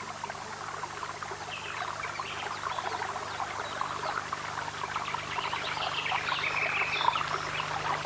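Running water, an even splashing trickle that grows slowly louder, over a steady low hum.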